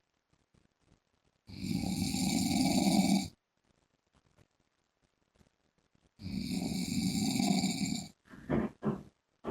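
A man snoring loudly and very regularly: two long snores about four and a half seconds apart, each lasting about two seconds, with near silence between them, then a few short, quieter sounds near the end.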